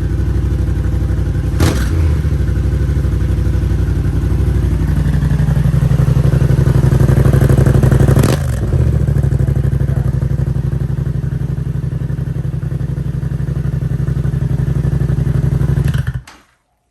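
2022 Yamaha R7's 689 cc parallel-twin engine idling through an aftermarket exhaust with its baffle fitted. It is blipped briefly about two seconds in, then revved gently up over a few seconds and dropped back to idle about eight seconds in, and it cuts off near the end. With the baffle on, the owner hears a little rattling sound.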